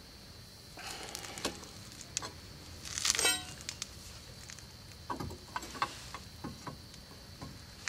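A crowbar levering against a disc brake caliper and pad to force the caliper piston back, with irregular metal scrapes and clicks and one louder scrape about three seconds in.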